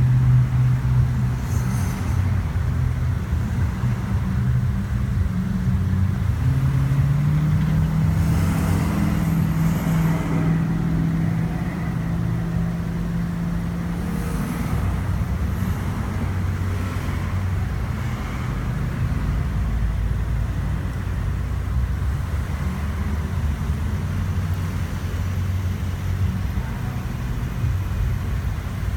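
Engine and road noise heard from inside a moving car: a steady low hum whose engine note rises about seven seconds in and drops back about halfway through.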